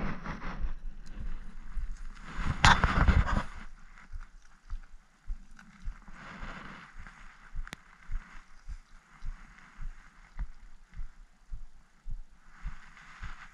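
Dry brush and grass rustling loudly close to the microphone for the first few seconds, then softer rustling through the grass with soft low thumps about twice a second.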